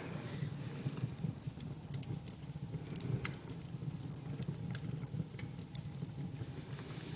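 Wood fire burning: a steady low rush of flames with scattered sharp crackles and pops.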